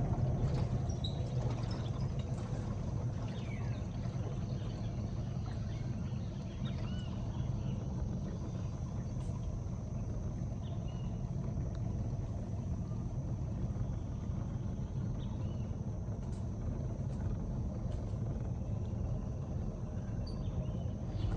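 A boat's motor running steadily with a low, even hum, with a few faint bird chirps over it.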